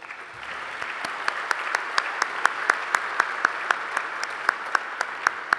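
Audience applauding, building up over the first second. One nearby pair of hands claps sharply at an even pace of about four claps a second above the rest.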